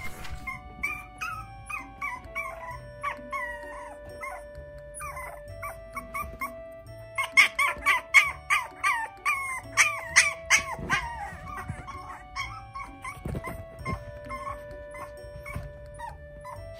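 Maltipoo puppies whining and yipping in many short, high, wavering calls, with a run of louder yips from about seven to eleven seconds in; the puppies are calling to be played with. Background music with long held notes plays underneath.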